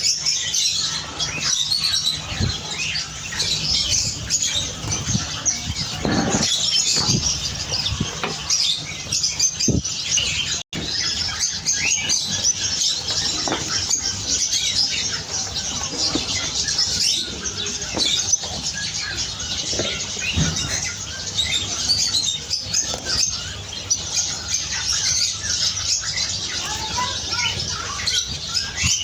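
A flock of canaries chirping and twittering all at once, with the flutter of wings as birds flap about the cage. The sound cuts out for an instant about a third of the way through.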